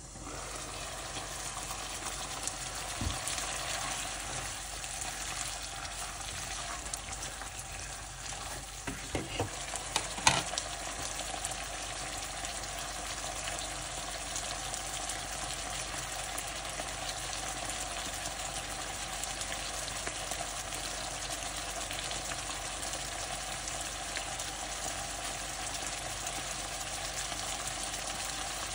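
Mutton pieces frying in oil and ghee in a pan: a steady sizzle that comes up as the lid is lifted, with stirring and a few sharp knocks about three seconds in and again nine to ten seconds in.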